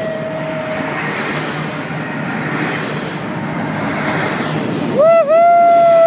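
Double-stack container freight train rolling past close by, a steady noise of wheels on rail. About five seconds in, a man lets out a long, loud held yell over it.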